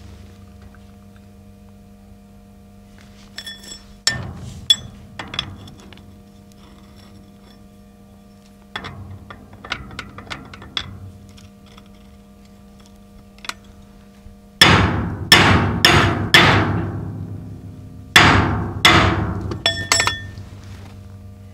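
Hammer blows on the steel of a loader bucket: a few lighter knocks and clinks, then two runs of heavy strikes, about five and then three, each ringing out metallically.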